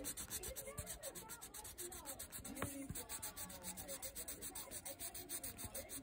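Rapid scribbling of brown colour onto paper: short scratchy back-and-forth strokes at about eight a second, filling in an area with short up-and-down lines.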